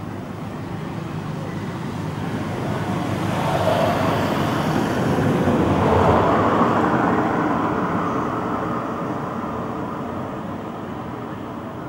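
A road vehicle passing by: its noise builds, peaks about halfway through, and fades away.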